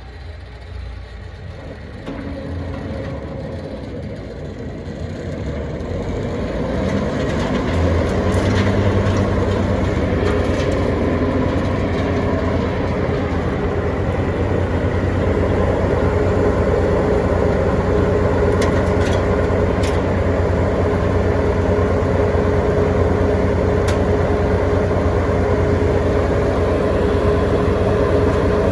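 Heizohack HM 6-300VM woodchipper running: the engine and drive rise in speed over the first several seconds, then run steadily at full speed. A steady whine comes in about halfway through, and there are a few light clicks.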